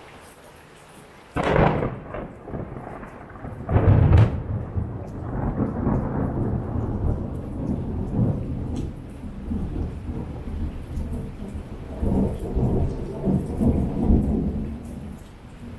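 Thunder over heavy rain: a sudden crack about a second and a half in, a louder crash around four seconds, then a long rolling rumble that swells again near the end and fades, over the steady hiss of the rain.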